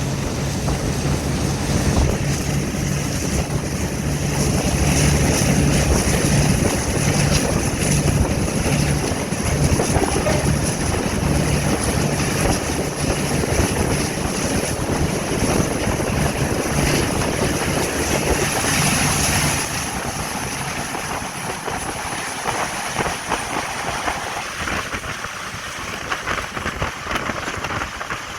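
Diesel locomotive running under power: a steady low engine drone with a high whine over it and the rush of the train. About twenty seconds in, the engine drone drops away and the sound eases.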